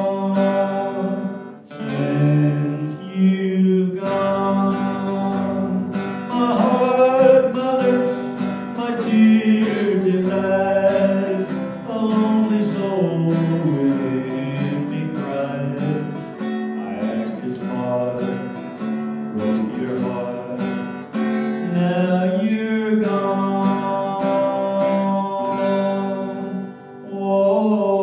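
Electric guitar playing a slow country ballad, with held chords and a bending melody line, a voice joining in at times.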